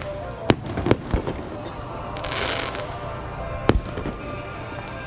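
Fireworks display: aerial shells bursting with sharp bangs about half a second in, again just under a second in, and near four seconds, with crackling in between.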